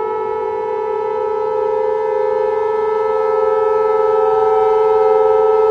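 Civil defense siren sounding a steady wail made of several tones held together at full pitch, growing slowly louder.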